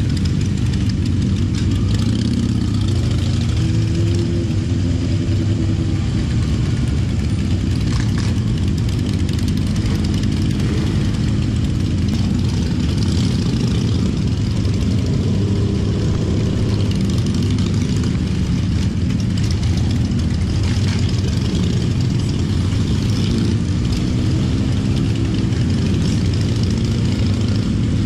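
Motorcycle engines running at low speed, heard from a bike riding in a slow group. The engine pitch rises and eases off a few times with the throttle.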